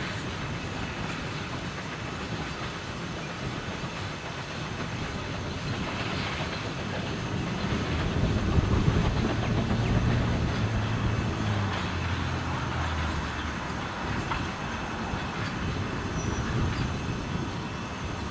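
Steam-hauled heritage passenger train's wooden carriages rolling past on the rails, the wheels clicking over the rail joints, loudest about halfway through and then fading as the train draws away. A low drone sounds for several seconds near the middle.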